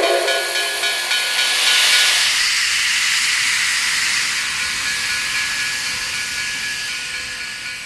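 Steam locomotive letting off steam: a loud hiss that slowly fades away, with the last of a steam whistle's chord dying out in the first couple of seconds.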